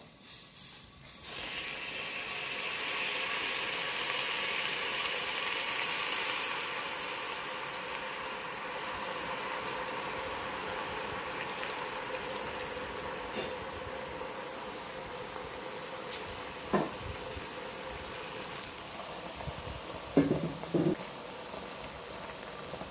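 Hot water poured into a hot nonstick pot, sizzling loudly as it hits the pan, from about a second in for some five seconds. The water then bubbles steadily as it steams the eggs set in a ring mould. A few short knocks come in the last seconds.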